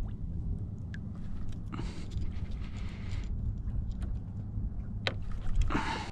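Handling noise from unhooking a small shark with pliers over the side of a small boat: scattered small clicks and two short rushes of hiss, about two seconds in and near the end, over a steady low rumble of wind and water.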